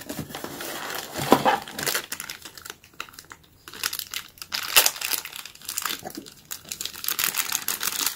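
Clear plastic packaging bag crinkling and rustling in hands as a small accessory is taken out of a cardboard box: a run of irregular crackles.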